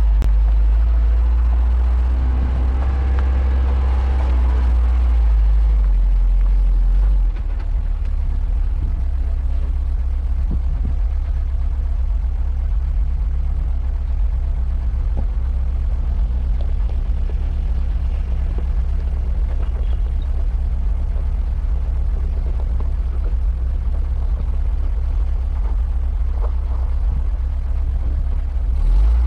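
VW T3 Syncro van driving slowly off-road, its engine running under a heavy, steady low rumble that turns into a fast flutter about seven seconds in. The engine note steps up and down a few times as the revs change.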